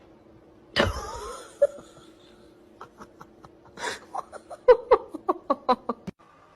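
Person laughing in quick repeated bursts that cut off abruptly near the end, after a sudden loud cry-like sound about a second in.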